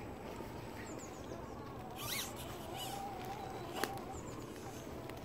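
Electric motor and gearing of a scale RC crawler truck whining faintly and unevenly as it crawls over mossy ground. A short rasping sound comes about two seconds in, and a sharp click near four seconds.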